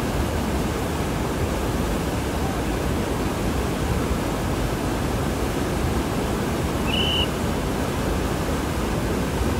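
Water rushing steadily over a dam spillway, a constant even rush of churning water. One short high chirp sounds about seven seconds in.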